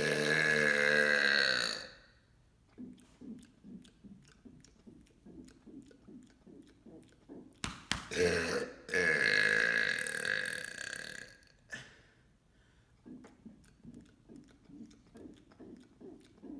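A man's long, loud burps: one of about two seconds at the start and a longer one of about four seconds a little before the middle. Faint quick clicks fill the gaps between them.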